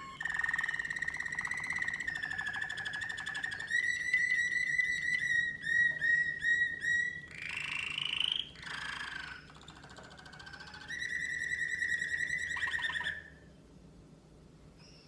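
American Singer canary singing a long song of rapid trills and held whistled notes, changing phrase every second or two, with one rising note about halfway through; the song stops a little before the end.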